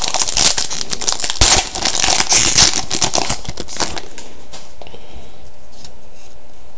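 Foil wrapper of a trading-card pack crinkling and tearing as it is opened, dense for about four seconds, then fainter clicks of cards being handled.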